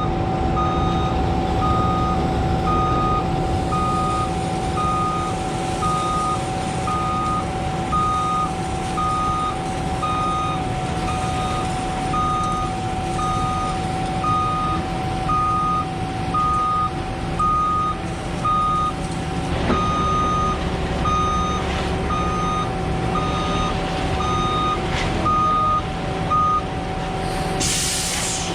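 Heavy truck's backup alarm beeping steadily, about once a second, over a truck engine running, with the beeping stopping shortly before the end. A short hiss comes near the end.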